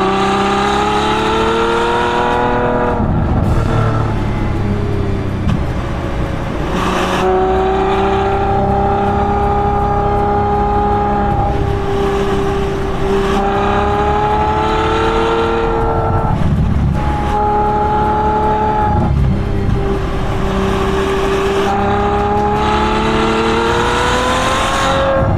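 Ferrari F12 Berlinetta's 6.3-litre naturally aspirated V12 exhaust, heard close at the rear bumper while driven through bends. The engine note climbs in pitch under throttle, drops away when the driver lifts off several times, then pulls and rises again near the end.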